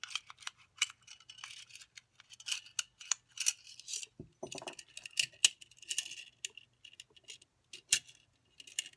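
Irregular clicks, rattles and small knocks of a pistol magazine's spring, follower and extended base plate being handled and pushed together, with a few louder knocks in the middle and near the end. The magazine spring is being compressed back down into the magazine body.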